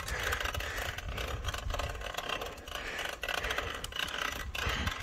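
Wind buffeting the microphone over the tyre noise of a road bike riding on asphalt: a low, uneven rumble with small irregular clicks throughout.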